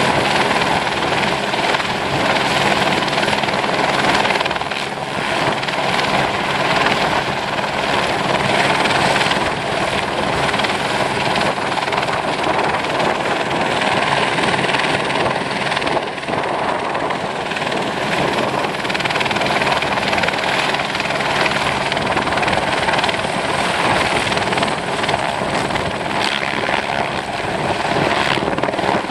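Helicopter hovering during aerial lift work on a chairlift tower, its rotor and engine noise continuous and steady, with a faint steady whine in it.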